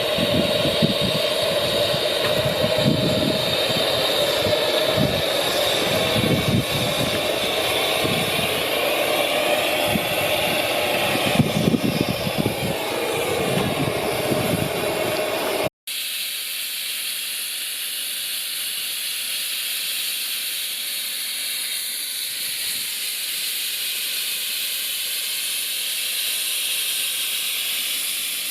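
Miniature railway train running, an uneven rumble with a steady whine over it; after a cut about halfway through, a steady hiss like steam venting.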